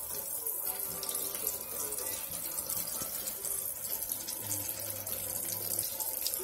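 Breaded shrimp deep frying in a pot of hot oil: a steady sizzle with fine crackling.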